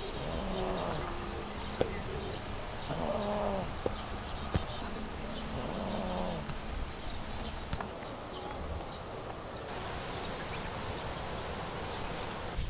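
Maltese dog snoring in its sleep: three pitched snores about three seconds apart, then they stop and only a steady background hiss remains.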